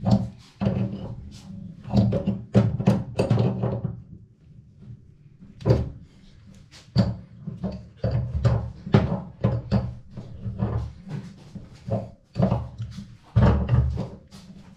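Irregular knocks, clicks and clatter of tools and fittings being handled during a kitchen tap repair, over a low hum, with a short lull about four seconds in.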